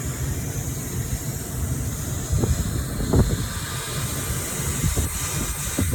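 Wind buffeting the microphone over a steady hiss, with a couple of faint knocks about two and three seconds in.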